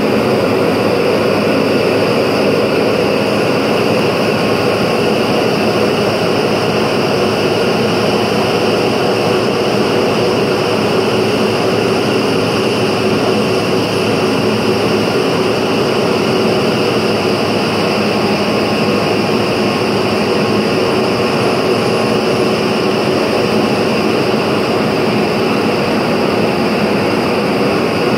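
The San Francisco cable car system's winding machinery running: large grooved sheaves and their electric drive turning the hauling cables. A loud, steady mechanical hum and whir that never changes.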